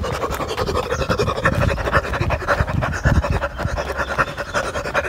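A jogger panting hard and fast while running, with rubbing and knocking on the handheld camera's microphone.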